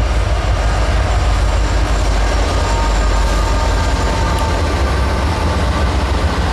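Norfolk Southern double-stack intermodal train passing close by. Its lead GE ES44AC diesel locomotive runs past about four seconds in, then the container cars roll by, all in a steady, loud rumble.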